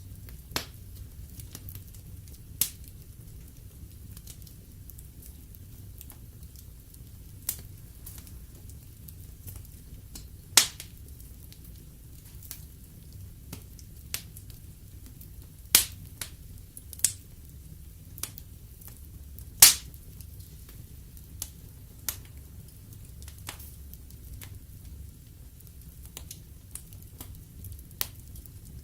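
Wood fire burning in a fireplace: a steady low rumble of flames with scattered sharp crackles and pops from the logs, a few of them loud, about a dozen in all.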